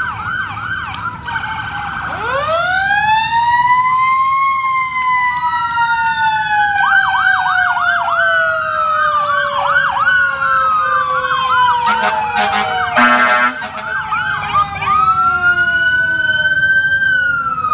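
Emergency-vehicle sirens from police cars and a fire engine sounding together: fast yelp sweeps over long, slow wails that rise and fall. A brief loud blast comes about two-thirds of the way in.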